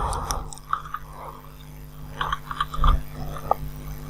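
Scattered faint clicks and small ticks over a steady low hum.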